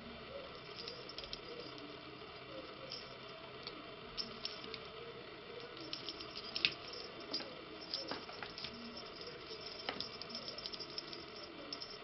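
Kittens' paws and claws scrabbling and tapping on a wooden floor as they play, a scatter of light clicks and taps that grows busier about halfway through, over a steady room hiss.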